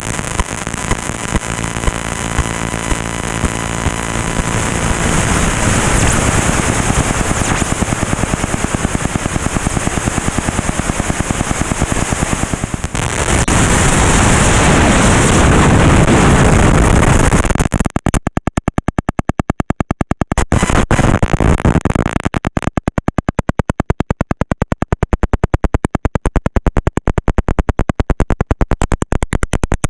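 GoPro Hero 5 Session audio with a fault. A loud, noisy rumble, with a low hum in the first few seconds, breaks from about 18 seconds in into a rapid, regular stutter that cuts the sound out many times a second: the camera's recording sound issue.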